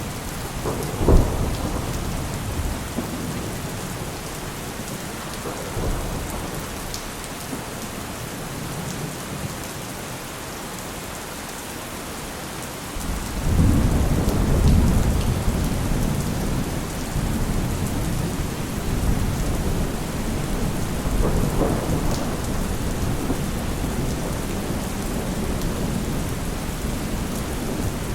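Heavy rain falling steadily with thunder. A sharp thunderclap comes about a second in, and a long, deep rumble rolls in about halfway through and continues.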